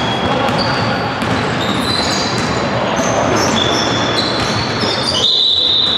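Basketball game play in a sports hall: a ball bouncing on the court and players' shoes squeaking in short high chirps, over a continuous din of the hall.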